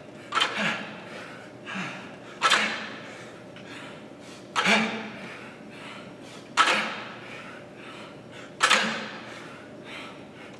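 A man exhaling sharply with a short grunt on each dumbbell lift, five or six strong huffs about two seconds apart.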